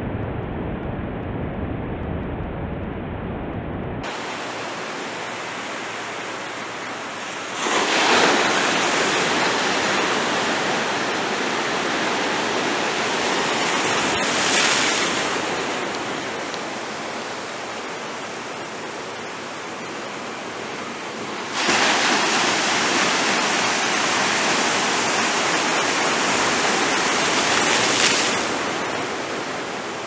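Ocean surf breaking and washing over the rocks of a jetty, a continuous rush of water. It is low and rumbling for the first few seconds, then brighter and hissier, and swells louder as waves break about eight seconds in, again around fifteen seconds, and over a longer stretch from about twenty-two to twenty-eight seconds.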